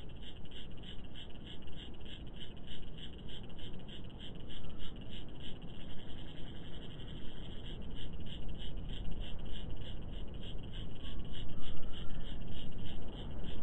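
Rhythmic high-pitched chirping calls from small animals, an even pulse of about four a second, over a steady low rumble.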